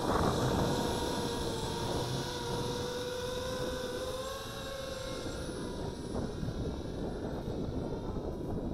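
Eachine Falcon 210 racing quadcopter's four 2300 Kv brushless motors and propellers whining at a steady, slightly wavering pitch under high throttle, fading after about five seconds as the quad pulls away. Wind rumbles on the microphone throughout.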